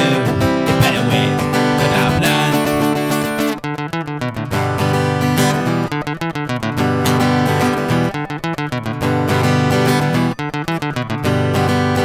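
Acoustic guitar strummed fast and rhythmically in an instrumental stretch of an acoustic punk song, settling into a choppy strumming pattern a few seconds in.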